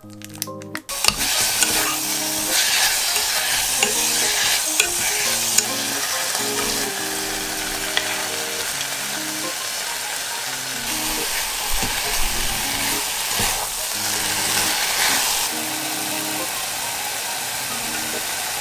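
Sliced beef and vegetables sizzling as they are stir-fried in a pot. The frying noise starts about a second in and then runs steadily, with a few light knocks of stirring.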